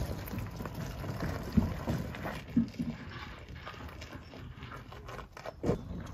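Two-wheeled steel-framed hand cart with wooden side panels rolling over gravel, its frame rattling with an irregular clatter and a few louder knocks.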